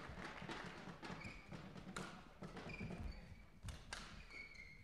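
Faint sports-hall sounds between rallies: a few sharp taps of badminton rackets striking a shuttlecock and short high squeaks of shoes on the court floor.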